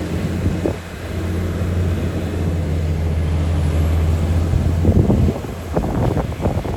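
Heavy diesel earthmoving machine engine running at a steady low drone, followed near the end by a rapid run of knocks and clatters.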